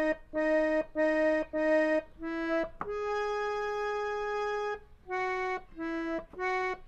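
Indian harmonium playing a slow single-note melody of a devotional gaulan, the notes short and separate except for one held for about two seconds in the middle.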